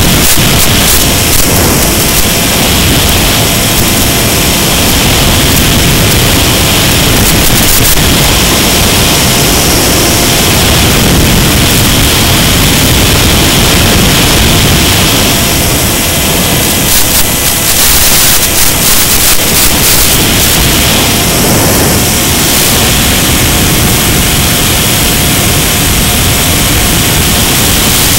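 Loud, steady hiss of noise spread evenly across all pitches, with a faint steady tone beneath it and a few brief crackling flutters about two-thirds of the way through. It is the sound track of a model airplane's first-person-view flight video.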